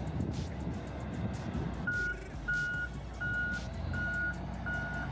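Reversing alarm of heavy mining equipment beeping steadily, starting about two seconds in at a little over one beep a second, over the rumble of a running diesel engine.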